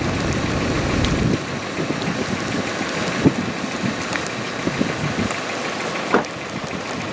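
Wind buffeting the microphone with a low rumble that eases off suddenly about a second in, leaving a lighter hiss of wind with a couple of short knocks.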